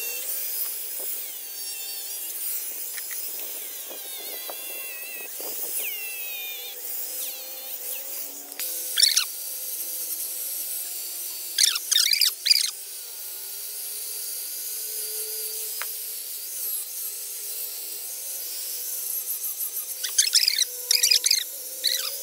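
Electric angle grinder with an abrasive disc sanding a fiberglass mould surface, running with a steady high hiss. Short, sharp high-pitched squeals break in several times, about nine and twelve seconds in and again near the end.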